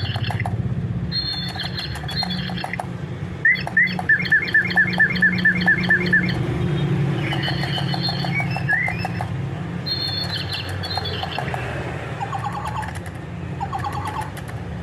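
Lovebirds calling with short, high chirps, including a run of about a dozen quick chirps, roughly four a second, a few seconds in. A steady low rumble runs underneath.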